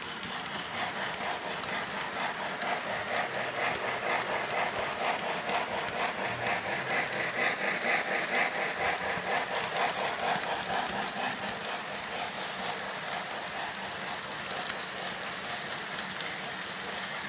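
Model steam locomotive and its freight cars running along the layout track, a quick, even rhythmic chugging clatter. It swells as the engine passes close, about halfway through, then eases off as the cars roll by.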